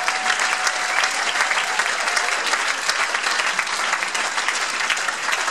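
Comedy club audience applauding steadily, a dense patter of many hands clapping.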